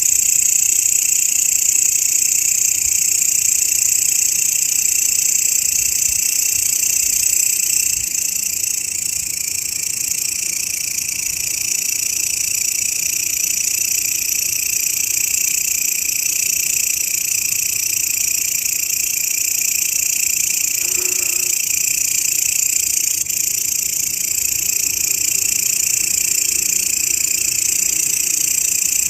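Grasshoppers stridulating: a steady, unbroken high-pitched buzz.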